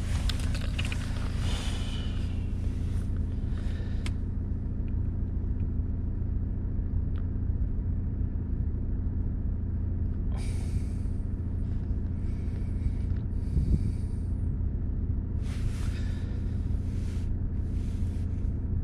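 Car engine idling steadily, a low even hum. Several short bursts of hiss come and go about ten to seventeen seconds in.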